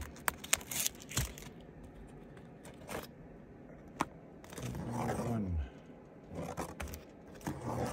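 Comic books being handled and flipped through, with a quick run of sharp clicks and rustles in the first second and a couple of single clicks after. There are short low mutters with falling pitch around the middle and near the end.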